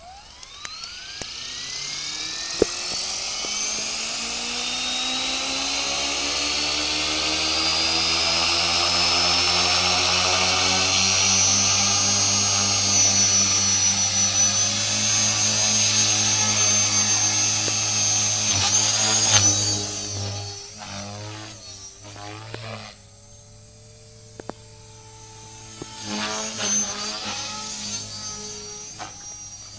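Align T-Rex 450L Dominator electric RC helicopter spooling up: the brushless motor's whine and the rotor hum rise in pitch over the first few seconds, then run steady and loud. About 19 seconds in the sound drops and wavers in pitch and level as the helicopter lifts off and flies.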